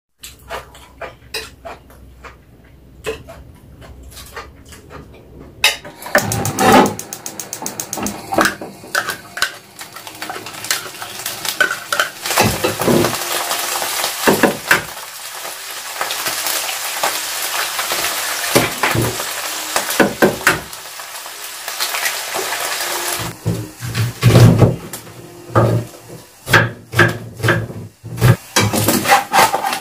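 A few light clinks, then food sizzling in a frying pan on a gas stove, with a utensil scraping and knocking against the pan. Near the end the sizzle fades back and a knife chops onion on a wooden cutting board in a run of sharp knocks.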